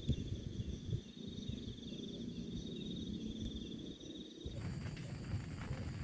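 An insect's high, steady, pulsing trill over a low rumble of wind. The trill stops abruptly about four and a half seconds in.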